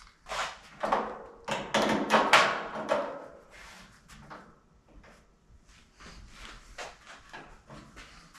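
Sheet-metal piece being slid and shifted against a car door skin to seat it: a few loud scraping rubs of metal on metal in the first three seconds, then lighter scratches and taps.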